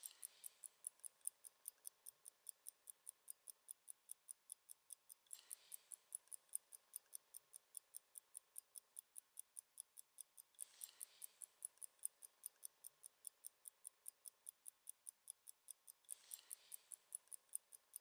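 Raketa mechanical wristwatch ticking faintly and evenly, about five ticks a second, its movement running.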